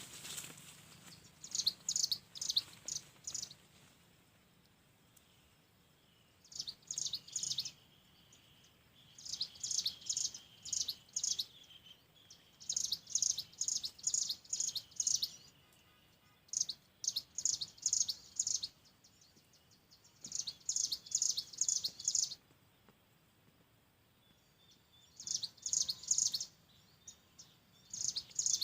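Ciblek gunung calling: bursts of five or six rapid, very high chirps, each burst lasting about a second, repeated about eight times with short pauses.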